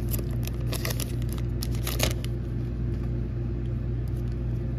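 Foil wrapper of a Pokémon Fusion Strike booster pack crinkling as it is torn open and the cards are slid out, busiest for about the first two seconds. A steady low hum runs underneath.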